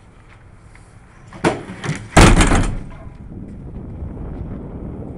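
Back of a pickup with a fiberglass topper being opened. Latch clicks come about one and a half seconds in, then a single loud clunk a little after two seconds, followed by steady wind noise on the microphone.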